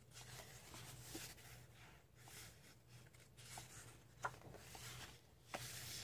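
Faint paper rustling and swishing as a hand turns and smooths the pages of a paperback coloring book, with two small crisp ticks in the second half.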